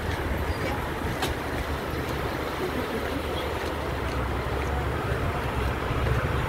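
Steady outdoor background noise: a low rumble under an even hiss, with a faint click about a second in.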